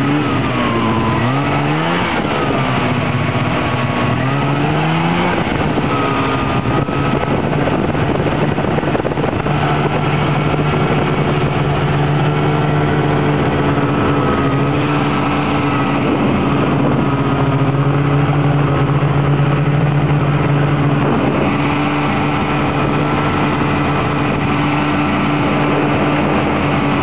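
Snowmobile engine running under way, its pitch rising and falling with the throttle over the first few seconds, then holding steady at a constant speed.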